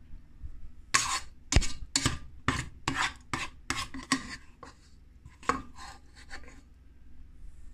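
A spoon scraping stewed dried fruit off the bottom of a cooking pot: about eight quick scrapes, roughly two a second, then a few more after a short pause.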